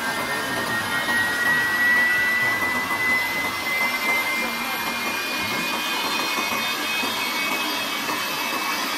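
Turbofan jet engine running, a steady rush of noise with a high whine that climbs slowly in pitch over the first few seconds and then holds, as the engine spools up.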